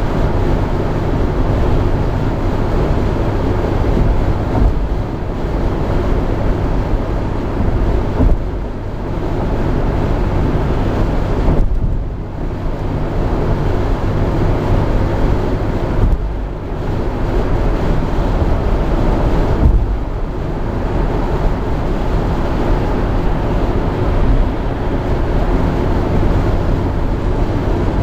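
Steady road, tyre and engine noise inside the cabin of a Jeep Grand Cherokee cruising at highway speed, with a deep rumble and wind noise. The noise dips briefly a few times.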